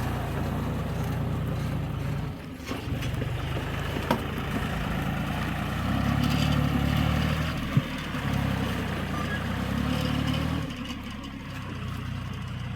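Diesel engine of a JCB backhoe loader running, working harder for a few seconds in the middle and then easing off, with a sharp metallic clank about four seconds in and another about eight seconds in.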